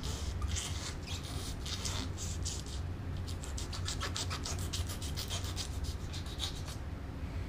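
Fillet knife cutting along a red drum toward the tail, the blade rasping through the scaled skin and flesh in quick runs of scratches, densest about halfway through.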